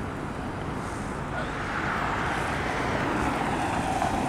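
City street traffic noise from cars and engines, getting a little louder about halfway through as a vehicle goes by.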